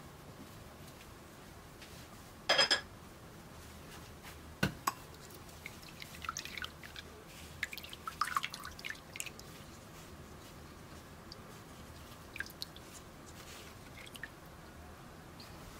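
Browned butter dripping through a paper-lined fine-mesh sieve into a glass bowl. A single ringing clink comes about two and a half seconds in, then soft squishing and small clicks as a silicone spatula presses the butter-soaked paper against the mesh.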